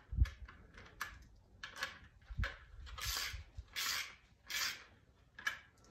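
Plastic trailer wiring junction box being handled while its wire-keeper clamp is tightened down on a wire: a string of short scratchy scrapes and clicks, with a dull knock at the start and another about two and a half seconds in.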